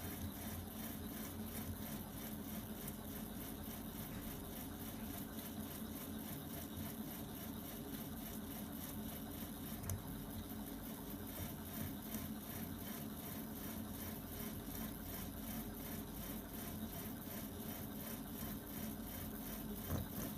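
Prusa i3 3D printer driven by Leadshine servo motors, running steadily as it prints: a low, even motor whir with the carriage's quick back-and-forth moves and a few light knocks.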